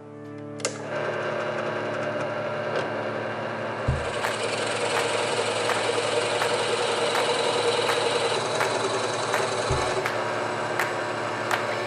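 Drill press motor running steadily as a Forstner bit bores into a maple block, a dense cutting noise over the hum. Two short low thumps come about 4 and 10 seconds in.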